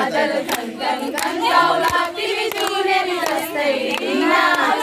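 A group of young women singing together unaccompanied, with hand claps along with the song.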